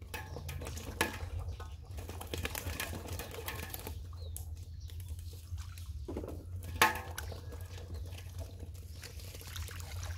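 Shallow muddy water splashing and sloshing in quick irregular patters as hands grope through it for fish, with a sharper, louder splash about seven seconds in, over a steady low rumble.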